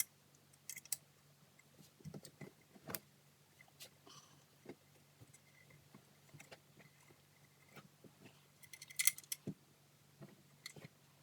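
Hand tools clinking and tapping on metal while Allen-head bolts are worked loose, in scattered light clicks with a quick cluster of clicks about nine seconds in.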